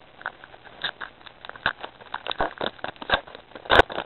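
Baseball trading cards and card packs being handled: irregular light clicks and rustles of card stock, with one louder snap near the end.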